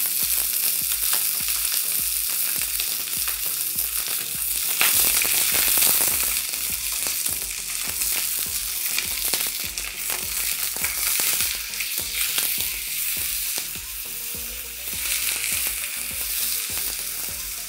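Chicken thighs searing skin-side down in hot olive oil in a frying pan over high heat: a steady sizzle with fine crackles and spatters, easing a little in the last few seconds.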